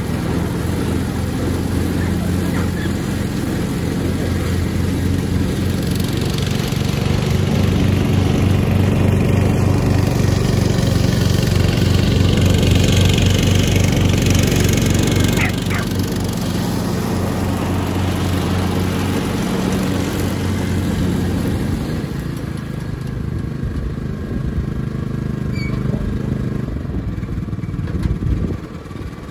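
Riding lawnmower engine running steadily as the mower drives, growing louder toward the middle and then fading away over the last several seconds. The mower is working again with its slipped drive belt refitted.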